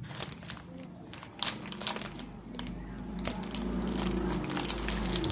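Packaging being handled during an unboxing: irregular crinkling and rustling with scattered sharp clicks. A low hum comes in about two seconds in and grows louder toward the end.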